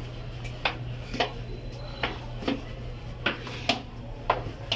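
Footsteps on a hard floor: sharp, irregular clicks about two a second, over a low steady hum that weakens about halfway through.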